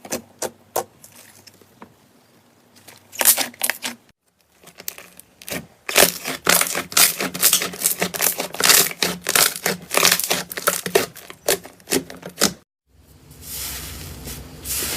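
Slime being squeezed and pressed by hand, making sharp sticky clicks and crackling pops. There are a few clicks at first, then a dense run of crackling through the middle, which cuts off suddenly and gives way to a softer crinkly hiss near the end.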